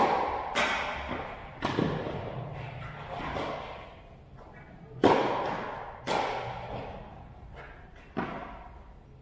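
Tennis rally: a tennis ball hit by rackets and bouncing on the court, a sharp knock about every one to two seconds, each ringing on in a long echo off the metal-walled indoor hall.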